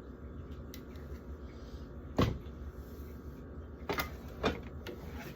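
Three knocks of food jars and containers being handled and set down while a fridge is emptied, the loudest about two seconds in and two lighter ones near four seconds.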